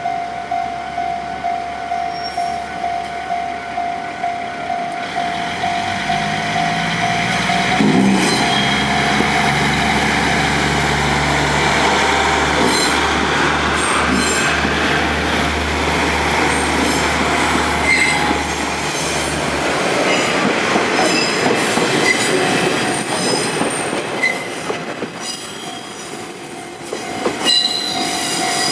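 Japanese level-crossing alarm bell ringing with its steady beat. About six seconds in, KiHa 40-series diesel railcars begin crossing at shunting speed: the diesel engine runs, wheels clack over the rail joints and flanges squeal at times. The engine noise fades after about twenty seconds and the crossing bell is heard again near the end.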